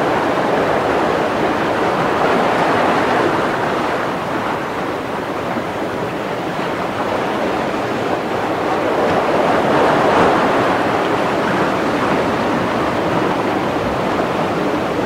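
Steady rushing, water-like noise that swells gently twice, about two seconds in and again about ten seconds in.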